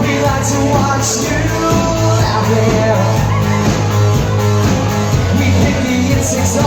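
Rock song with singing and guitar, played as background music.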